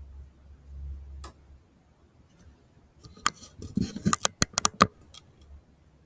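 A quick run of small sharp clicks, about seven within two seconds midway through, over a faint low steady hum.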